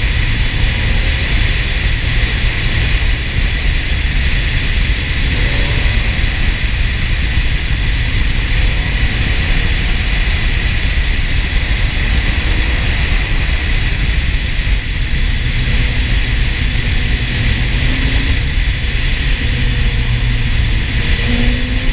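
Porsche 968 at speed on a winding road: a loud, steady rush of wind and road noise, with the engine note faintly rising and falling underneath as the car works through the curves.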